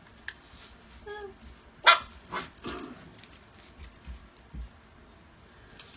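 Siberian husky puppy giving a few short, high barks in play, the loudest about two seconds in.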